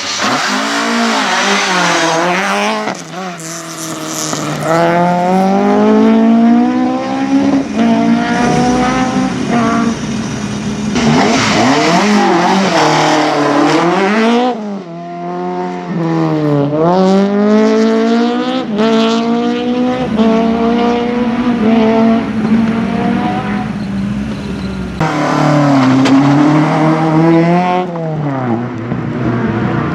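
Racing car engine driven hard on a short circuit, its pitch climbing under acceleration and dropping sharply at each gear change and braking point, many times over. The sound changes abruptly right at the start and again about 25 seconds in.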